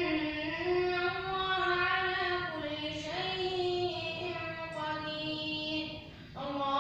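A boy's voice chanting Quran recitation in a drawn-out melodic style, holding long notes that rise and fall slowly. The voice breaks off briefly near the end, then starts a new phrase.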